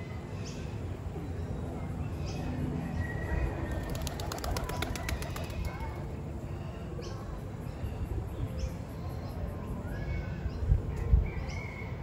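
Wild birds chirping in short scattered calls over a steady low rumble, with a fast fluttering run of clicks about four seconds in. Two low thumps near the end are the loudest sounds.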